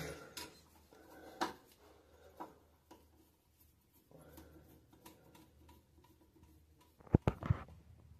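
Screwdriver backing out a toilet seat's plastic hinge bolts: faint scraping and scattered clicks of the driver tip on the bolt heads, with a quick run of louder clicks about seven seconds in.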